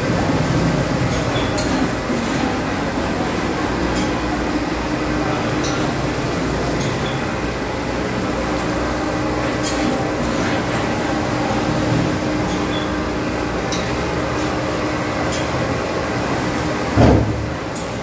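Industrial carpet-cleaning machinery running: a steady mechanical hum with scattered light clicks, and a brief louder low thump about a second before the end.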